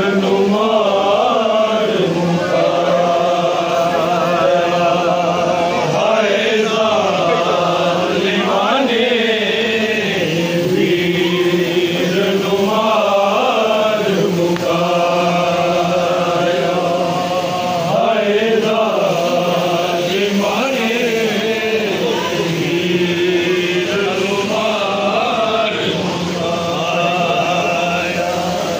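Men's voices chanting a Punjabi noha, a Shia lament, together in long, wavering held melodic lines without pause.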